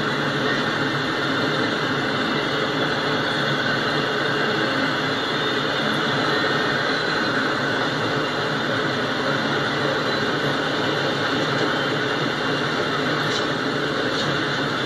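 Autorack freight cars rolling past: a steady, unbroken rumble and hiss of steel wheels on the rails.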